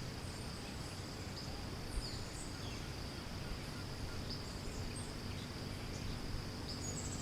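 Steady high-pitched insect drone, with a few short high chirps scattered over it and a faint tap about two seconds in.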